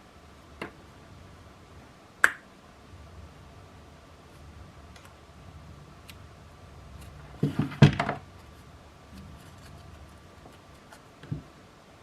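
Hard objects being handled and set down on a hard surface: a few scattered clicks and knocks, with the loudest cluster of knocks about eight seconds in.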